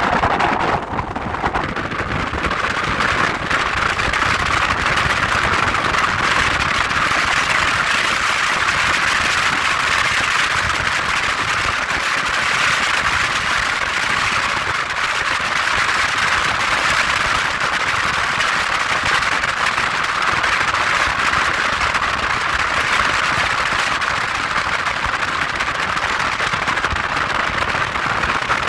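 Wind buffeting the microphone on a moving boat, a steady loud rush that covers the boat's engine.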